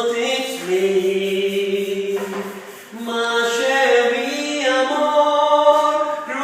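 A man singing unaccompanied, holding long drawn-out notes without clear words, in two phrases with a short break about three seconds in.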